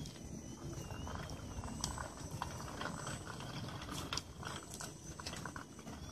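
Electric motor and propeller of a Twisted Hobbys Extra Slick foam RC aerobatic plane, heard as a faint whine wavering up and down in pitch, over wind rumble on the microphone and a scatter of small clicks.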